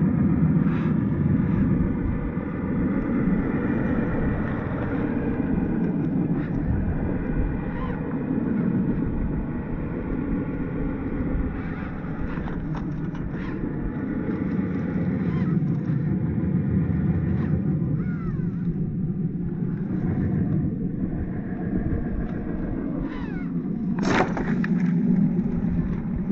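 1/10-scale Traxxas TRX-4 RC crawler driving over rough trail ground: its electric motor and gears whine, rising and falling in pitch with the throttle, while the tyres crunch and knock over rocks. There is one sharp knock near the end.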